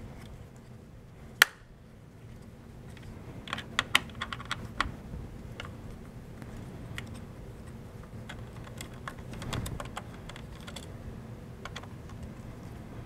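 Clicks and taps of a torque screwdriver working the retention-bracket screws of a TR4 CPU socket as they are loosened. One sharp click about a second and a half in is the loudest, followed by a quick cluster of clicks around four seconds in and lighter scattered ticks after.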